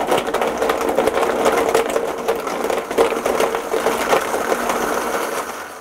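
Countertop blender running, its blades crushing ice cubes and frozen banana chunks in juice and yogurt: a dense clattering over a steady motor whine. It winds down near the end as it is switched off.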